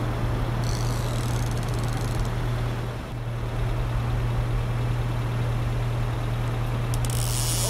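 A steady low hum over a constant rushing noise, with a brief high hiss about a second in.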